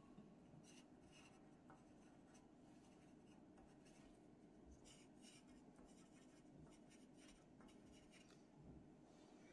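Faint scratching of a pencil on paper in short, irregular strokes as small details are drawn in.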